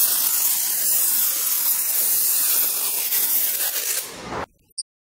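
Compressed-air blow gun blasting a steady hiss of air into a car's door sill and door gaps, blowing out water left after the wash. It stops abruptly about four seconds in.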